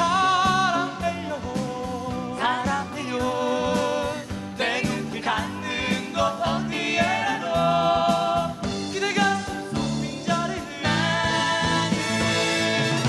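A woman and two men singing a Korean pop ballad together in harmony, over acoustic guitar and accompaniment.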